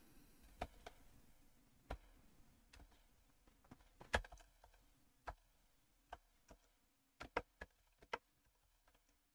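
Faint, irregular clicks of computer keyboard keystrokes and mouse clicks, a few a second, sparser near the end.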